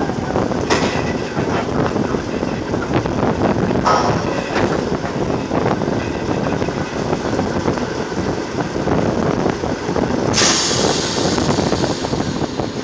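Oil-rig floor machinery running steadily and loudly, with a few sharp metal clanks of pipe being handled in the first half. A loud hiss comes in about ten seconds in and lasts a couple of seconds.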